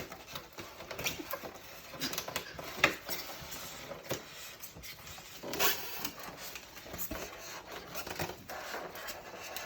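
Handling noise of an unboxed espresso machine and its packaging: scattered clicks, taps and knocks over light rustling, the loudest knock a little past the middle.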